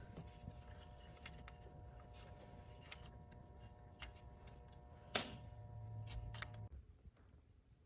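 Faint scattered clicks and handling noises of hand tools on the bolts of a small metal cover, with one sharper click about five seconds in, over a low steady hum that cuts off abruptly near the end.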